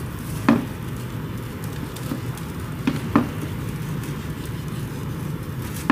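Hands pressing a coarse dry spice rub onto raw fish pieces in a steel plate, with a couple of brief handling sounds, about half a second and about three seconds in, over a steady low background rumble.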